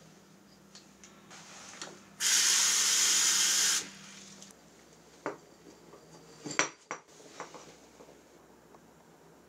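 A washbasin tap runs for about a second and a half, turned on and shut off sharply. Then come a few light clicks and knocks of a plastic cup being handled at the sink.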